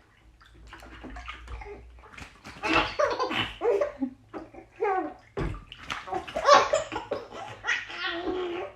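Bath water splashing and sloshing in a bathtub as a baby is washed, with stretches of vocal sounds from the baby over it.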